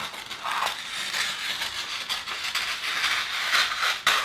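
Scissors cutting through a sheet of paper in one continuous cut, the blades rasping through the paper as the sheet rustles.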